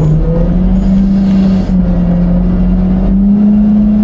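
Autocar garbage truck's engine revved up to drive the hydraulics of its Heil Freedom half pack packer during a packing cycle: a loud steady rumble with a droning hydraulic pump tone that steps up in pitch shortly after the start, dips briefly in the middle and rises again near the end.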